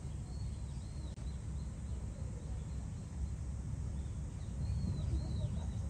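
A small bird chirping, two short runs of arched chirps a few seconds apart, over a steady low rumble of outdoor ambience.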